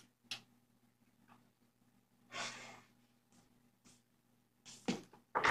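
A person's soft breathy sigh, one exhale of about half a second, over a faint steady room hum, with a couple of faint clicks around it. A louder knock or rustle comes near the end.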